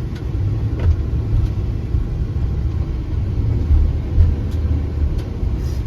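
Motor vehicle on the move: a steady low rumble of engine and road noise, with a few faint ticks.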